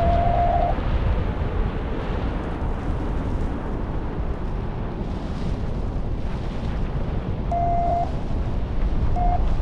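Heavy wind rushing over the microphone. A thin steady electronic tone sounds at the start, stops within the first second, and returns as two short tones near the end.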